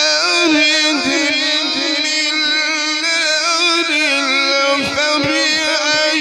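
A male qari's melodic Quran recitation: one voice drawing out long, ornamented notes that bend up and down.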